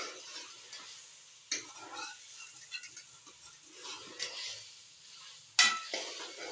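A spoon stirring and scraping through a frying mixture of meat and vegetables in a pot, with sharp clinks against the pot, the loudest about five and a half seconds in, and a faint sizzle beneath.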